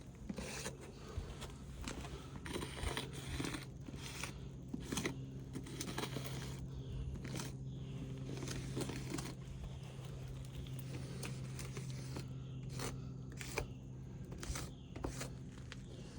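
Chalk being drawn across asphalt roof shingles: short, irregular scraping strokes as the layout lines are redrawn.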